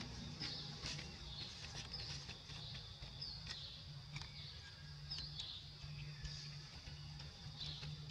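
Faint outdoor ambience with small birds chirping: short high chirps about once a second, with scattered small clicks and a low hum that comes and goes.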